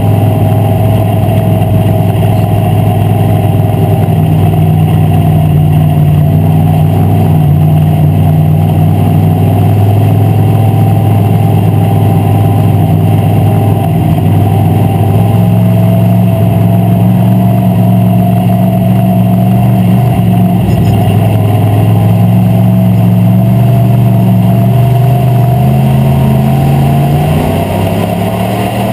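WISSOTA Street Stock race car's V8 engine running hard under racing load, heard loud from inside the cockpit. Its pitch rises and falls with the throttle, and it eases off a little near the end.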